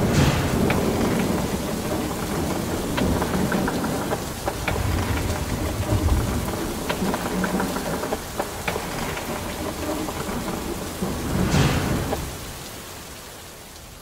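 Rainstorm: steady rain with rolling thunder, which swells at the start, again about five seconds in and once more near the end, then fades out.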